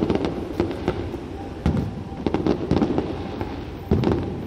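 Aerial fireworks bursting: an irregular string of sharp bangs, the loudest near the end.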